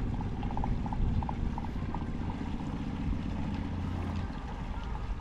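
A boat's engine running steadily at low revs as the yacht motors slowly out of its berth. It is a low, even hum that eases off slightly about four seconds in.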